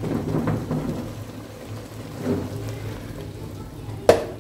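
Silicone spatula stirring macaroni in a thick sauce in a non-stick pot, with a soft crackling sizzle from the hot pasta. A single sharp knock about four seconds in as the pot is gripped by its handle and moved.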